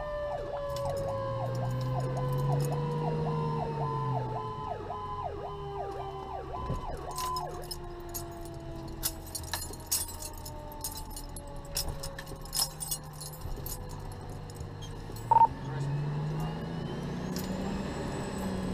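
Fire truck sirens heard from inside the cab: an electronic siren yelps rapidly for the first several seconds and then stops, while a mechanical siren winds down in a long, slowly falling tone. The truck's diesel engine rises and falls in pitch twice, once early and once near the end, with scattered clicks and rattles from the cab.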